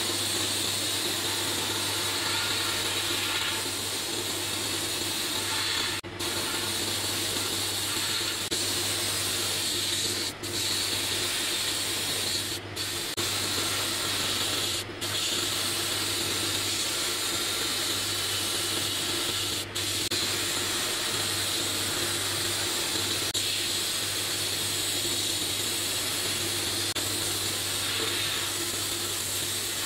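Sandblasting cabinet gun blasting abrasive onto a pressed-steel toy truck part, stripping its old yellow paint to bare metal: a steady hiss over a low hum, broken by about five very brief dips.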